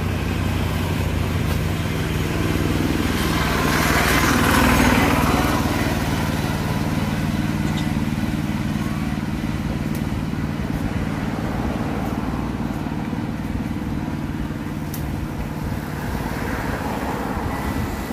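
An engine running steadily, growing louder for a couple of seconds about four seconds in and then settling back.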